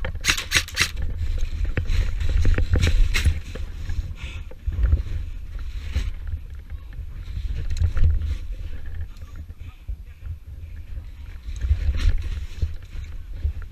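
Rumbling wind and handling noise on a helmet-mounted camera as the wearer moves, with a quick run of sharp clicks in the first second and scattered knocks after.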